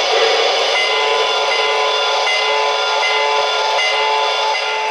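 Lionel PRR S2 turbine O-gauge model locomotive's onboard sound standing still: a steady hiss with a few held tones and very little bass.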